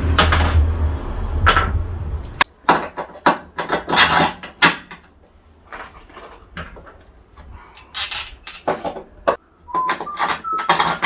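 Steel bolts and washers clinking and knocking in a series of sharp, separate clicks as they are handled and set through holes drilled in the van floor. A low rumble stops about two and a half seconds in.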